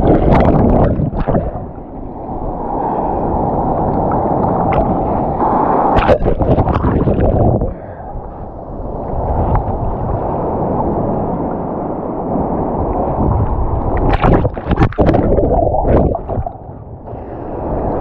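Sea water washing and gurgling over rocks in waves that swell and ebb, with several sharp splashes.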